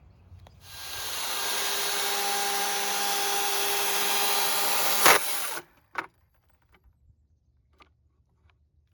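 DeWalt battery-powered chainsaw spinning up and running steadily with a whine for about five seconds. A sharp crack comes just before it stops, and a few light knocks follow.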